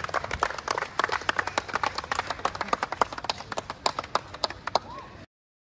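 A group of people clapping by hand, many quick overlapping claps, with a brief shout near the end; the sound cuts off suddenly just before the end.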